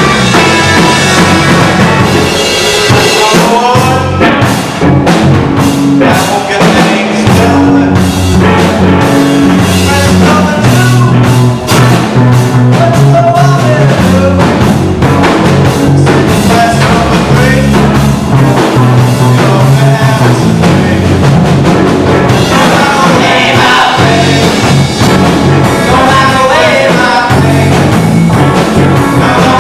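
Rock song with drum kit, bass and a sung vocal line.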